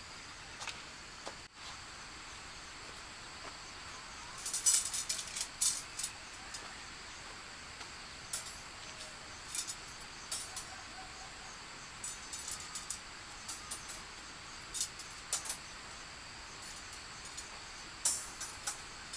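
Irregular clusters of short, sharp metallic clinks and taps, the loudest group about four and a half seconds in and another near the end, over a steady high-pitched insect drone.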